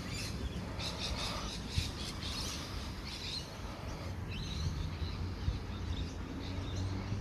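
Small birds chirping and calling, busiest in the first few seconds, over a steady low rumble.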